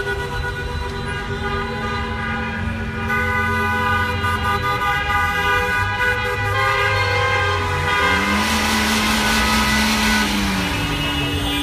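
Many car horns honking together in long, overlapping blasts from a slow-moving car convoy. Near the end a low note rises and falls over a louder rush of noise.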